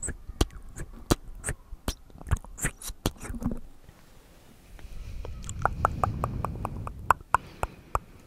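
Close-miked ASMR sounds from hands at a foam-covered microphone: a quick run of sharp clicks, then a soft low rumble with fast regular clicks, about five a second, after a short lull.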